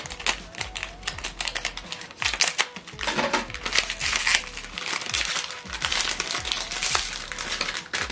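Plastic packaging of HP 305 ink cartridges crinkling and rustling as it is handled and opened, with many small clicks and louder bursts of crackle.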